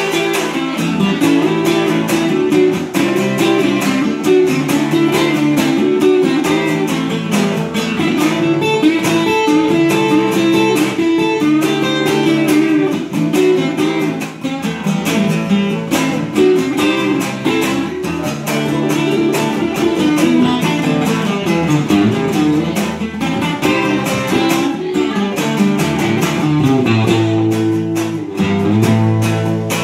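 Two acoustic guitars playing together without singing, one picking and one strumming in a steady rhythm.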